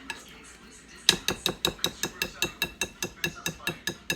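A spoon or whisk beating against a mixing bowl with quick, even ringing knocks, about five a second, starting about a second in, as hush puppy batter is mixed.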